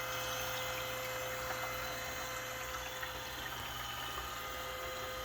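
Perkin Elmer laboratory furnace cooling chiller running steadily, its pump circulating glycol water, with a faint watery bubbling like an aquarium tank over a constant motor hum.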